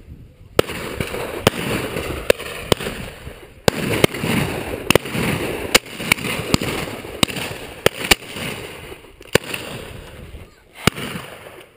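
A volley of shotgun shots from several guns firing at driven pheasants, well over a dozen reports at irregular intervals, some close and loud, others further off.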